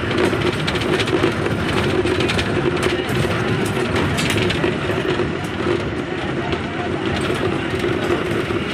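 Bus driving, heard from inside the cabin: a steady engine drone with road noise and frequent rattles from the body and fittings.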